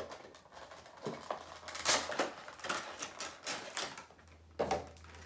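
Cardboard Funko Pop box and the figure's clear plastic wrap being handled as the figure is slid out: irregular rustling and crinkling with light clicks and taps.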